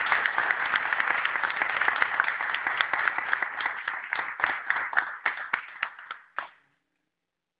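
Audience applause: a dense round of hand clapping that thins out to a few separate claps and stops about six and a half seconds in.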